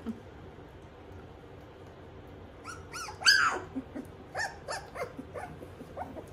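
Twenty-five-day-old schnoodle puppies giving a run of short, high-pitched yips and whines, starting about two and a half seconds in. The loudest call comes near the middle, followed by a string of shorter ones.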